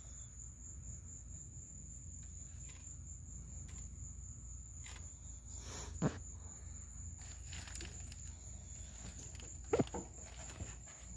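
Steady high insect trill of crickets, with a few short clicks and knocks from handling the plastic intake manifold and its hose, the loudest about six seconds in and near the end.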